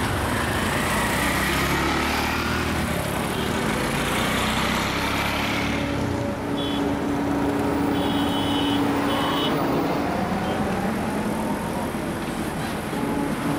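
Road traffic: three-wheeled auto-rickshaw engines driving past, then a truck approaching. A few short high-pitched beeps sound around the middle.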